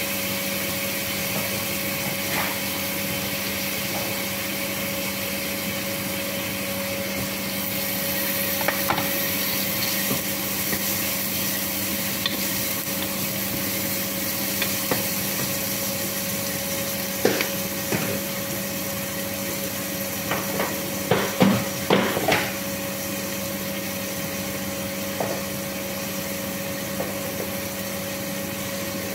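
A steady machine hum, with a cluster of short knocks and clatters of kitchen utensils against a pot about two-thirds of the way through.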